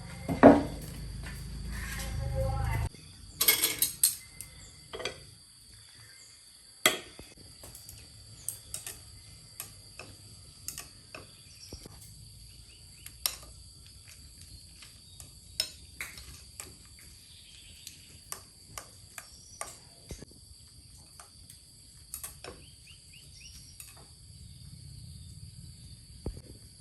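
Irregular light knocks and clicks of objects being handled, a few louder clatters near the start, over a steady high-pitched hum.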